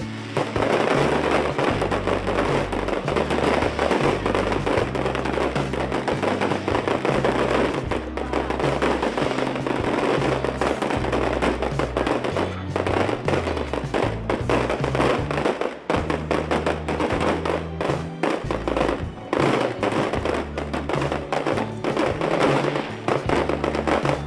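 Aerial fireworks bursting and crackling in a rapid run of bangs, over music with a heavy bass line.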